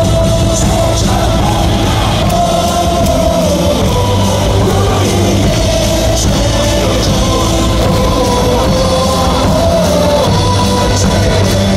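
Loud cheer-song music with a steady beat played over the ballpark loudspeakers, with voices singing along to the melody.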